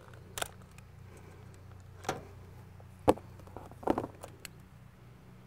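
Sharp metal clicks and clinks from a wrench working the clamp of a battery-powered flaring tool and from the flared copper tubing being pulled free, the loudest about three seconds in, over a faint steady low hum.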